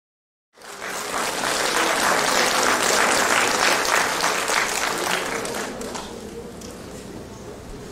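Audience applauding in a theatre. The applause cuts in abruptly about half a second in, is loudest around three to four seconds in, and then dies down to lighter clapping.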